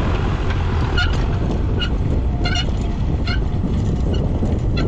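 Tractor engine running steadily, with about five short high-pitched chirps at uneven intervals.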